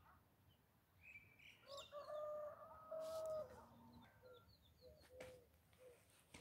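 A rooster crowing once, a single drawn-out call starting a little under two seconds in and lasting about two seconds, faint and far off, with small birds chirping and short, low, repeated cooing notes in the second half.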